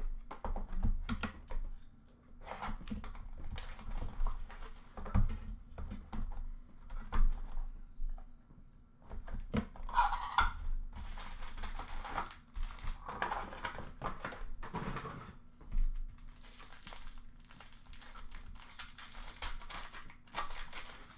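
An Upper Deck Allure hockey card box being opened and its foil card packs crinkling and tearing as they are handled, in irregular rustling spells with a few sharp knocks.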